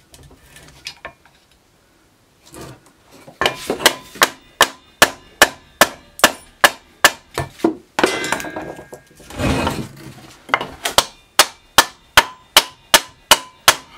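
Wooden mallet blows, about two to three a second in two series, knocking apart a rusted drill-press stand: first driving on a screwdriver set in the mechanism, then striking a wooden block held against the part. Between the series there is a scraping rustle of about two seconds.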